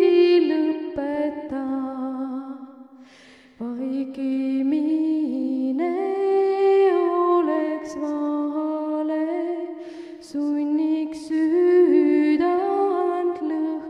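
A woman singing unaccompanied, a slow song in long, held notes, with a breath and brief pause about three and a half seconds in.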